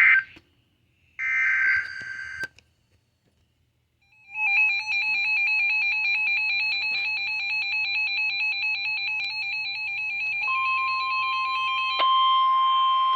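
NOAA Weather Radio emergency alert. First come the last buzzy SAME data bursts, the second ending in a click. About four seconds in, the Midland 74-210 weather radio's own alarm starts: a loud, fast two-note warble. Near the end the steady 1050 Hz warning tone joins it and carries on alone after the alarm stops.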